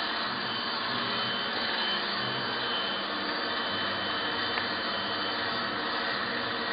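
Steady, even background noise, a hiss with a faint high tone running through it.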